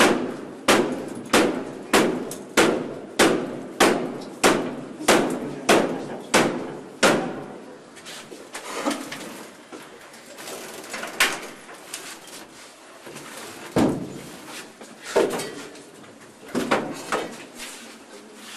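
Repeated heavy blows against a door that is being forced in, at a steady rate of about one and a half a second for the first seven seconds, then fewer, irregular blows.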